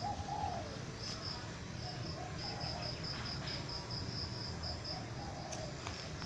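Outdoor ambience: an insect, likely a cricket, chirping in a rapid, regular high pulse, with a dove cooing softly in a few short phrases.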